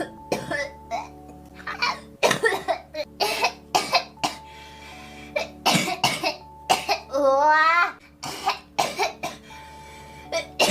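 A girl coughing repeatedly in short, harsh fits, several coughs close together in each cluster. About seven seconds in there is a drawn-out, wavering voiced sound lasting about a second.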